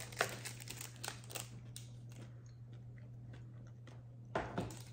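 Crisp crunching and crackling from a spicy tortilla chip and its foil pouch and cardboard box: a few sharp clicks in the first two seconds and a louder crunch about four and a half seconds in, over a low steady hum.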